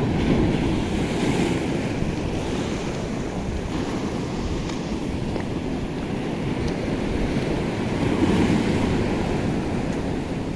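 Shallow surf washing up over sand and drawing back, swelling near the start and again about eight seconds in, with wind buffeting the microphone.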